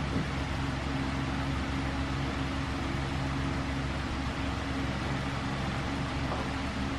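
A steady mechanical hum with a low droning tone, like a running motor or fan.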